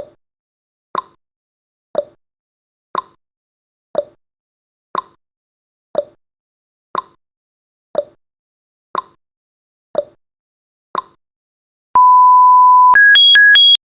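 Countdown timer's tick-tock sound effect, one tick a second alternating between a higher and a lower tick. Near the end comes one steady beep lasting about a second, then a fast alternating electronic alarm tone as the timer reaches zero.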